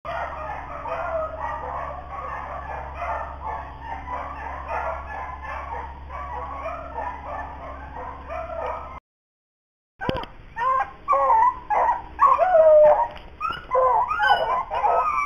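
A pack of rabbit hounds baying in full cry on a rabbit's track, many voices overlapping. About nine seconds in the sound drops out for a second at a cut, and the baying comes back louder, with single voices standing out.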